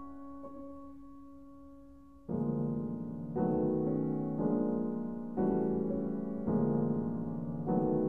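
Solo piano music: a held chord fading away, then from about two seconds in a series of full chords struck roughly once a second, each left to ring.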